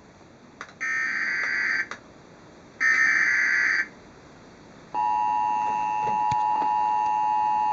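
Emergency Alert System broadcast tones. Two one-second bursts of SAME header data are the warbling digital screech that encodes the alert. About five seconds in, the steady two-tone attention signal (853 and 960 Hz) starts and holds.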